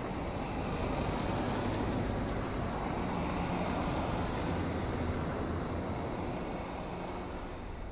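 Several MINI hatchbacks driving in convoy along a dirt track: a steady mix of engine and road noise that eases slightly near the end.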